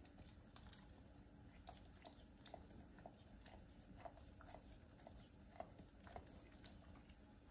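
Dog licking pumpkin puree off a metal spoon: faint, short licking and smacking sounds, about two a second, starting a little under two seconds in.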